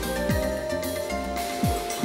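Background music: held notes with short drum hits that drop sharply in pitch.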